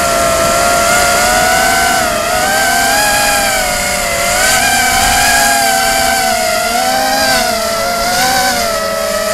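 Brushless motors and propellers of a 250-size FPV racing quadcopter, heard close from its onboard camera: a loud whine of several close pitches that wavers up and down together as the throttle changes.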